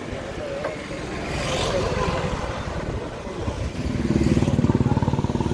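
A small motor vehicle's engine running close by, getting much louder about two-thirds of the way in and staying loud.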